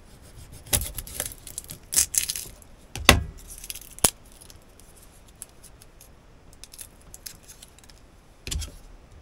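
Kitchen knife knocking on a cutting board as garlic cloves are crushed under the blade, several knocks in the first few seconds with a sharp click at the last of them. Then faint ticks and rustles as the papery garlic skin is peeled off by hand, with one more knock near the end.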